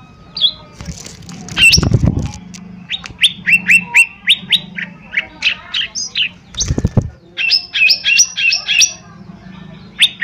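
Lesser green leafbird (cucak ijo mini) singing: quick runs of short, sharp chirps, several a second. Two low thumps cut in, about two seconds in and again near seven seconds.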